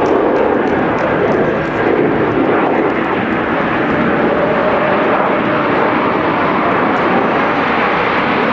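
Formation of Aermacchi MB-339 jet trainers flying overhead, their engines making a loud, steady rushing jet noise.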